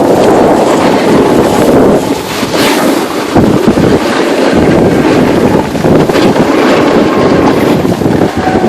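Heavy wind buffeting the microphone of a camera carried by a skier going downhill at speed: a loud, continuous rushing rumble that gusts unevenly.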